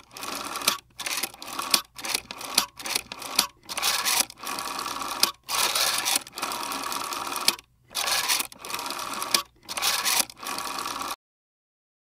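Rotary telephone dial being pulled round and let spin back, digit after digit: each digit is a separate stretch of dial ratcheting and whirring, with short pauses between digits. The dialing stops abruptly about eleven seconds in.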